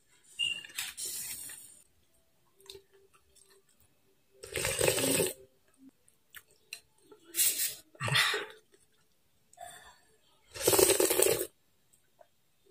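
Slurping noodle soup from a spoon, in several loud slurps of about a second each, with softer blowing on the hot spoonful at the start.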